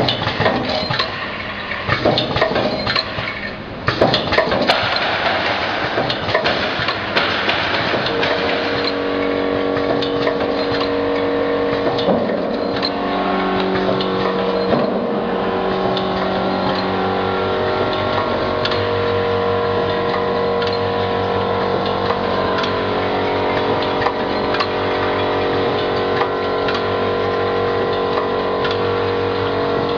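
Automatic screw counting and packing machine running, with a steady mechanical clatter and frequent small clicks. The vibratory bowl feeder hums low and switches on and off in short spells. Several steady whining tones come in about eight seconds in.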